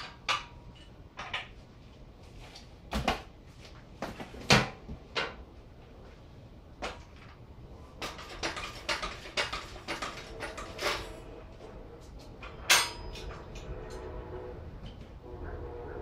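Irregular metal clanks and knocks as a motorcycle is worked off a metal jack stand by hand, about a dozen in all, the loudest about four and a half seconds in and near thirteen seconds, the later one ringing briefly.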